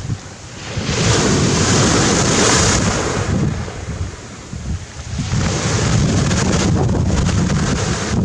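Sea waves breaking on a pebble beach, surf rushing over the stones in two surges, the first about a second in and the second after about five seconds. Wind buffets the microphone with a steady low rumble.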